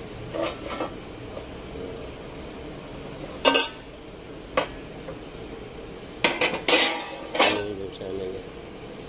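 Metal tools and engine parts clanking against each other in about half a dozen irregular sharp strikes, each with a short ringing tail.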